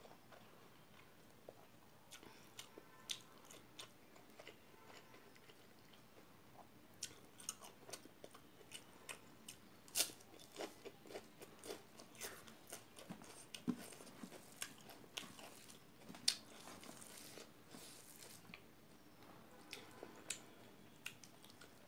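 Close-up eating sounds: a person chewing and crunching rice and raw cabbage leaf with wet mouth clicks, with fingers mixing rice on a steel plate. The clicks are sparse at first and come thick and fast from about seven seconds in.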